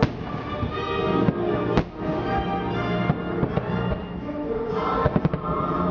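Aerial firework shells bursting with sharp bangs: one right at the start, one a little under two seconds in, and a quick run of several near the end. Music with long held notes plays underneath.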